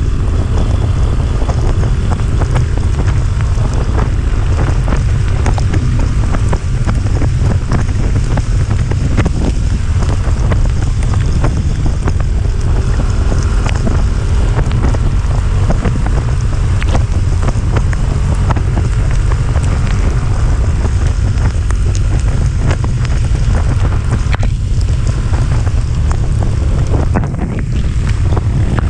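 Heavy wind buffeting the microphone during an uphill ride, a steady loud rumble with the vehicle running underneath.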